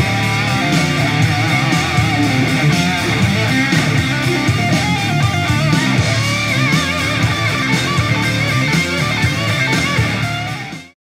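Guitar-driven music played through a Logitech UE MEGABOOM Bluetooth speaker and recorded from the air by a microphone. It drops away quickly and cuts to silence near the end.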